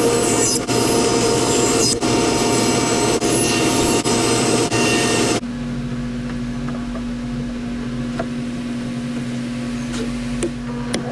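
Power sander running against the wooden frame for about five seconds, with a steady whine over the scratch of the abrasive. It breaks off abruptly and gives way to a quieter, steady low machine hum.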